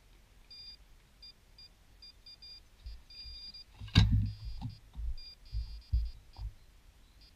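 Electronic carp bite alarm beeping in short, irregular bursts that come faster and nearly run together after about three seconds, the sign of line being pulled from the rod. A sharp knock about four seconds in, followed by a few dull thumps.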